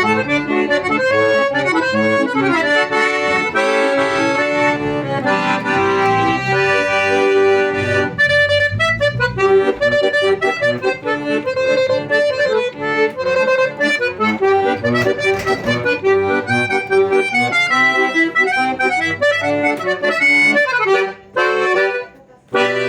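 Accordion playing a quick melody over sustained chords. The playing breaks off briefly near the end, then starts again.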